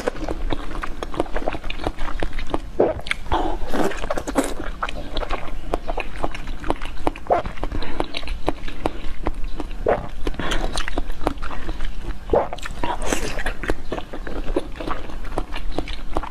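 Close-miked eating sounds from biting into and chewing a firm jelly cube with fruit pieces set inside: many short, irregular clicks and smacks.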